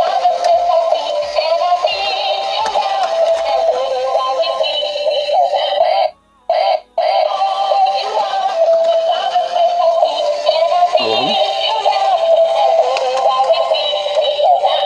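Battery-powered dancing duck toy playing its electronic children's song with a synthesized singing voice, switched on and working after repair. The sound cuts out twice briefly about six seconds in, then the song carries on.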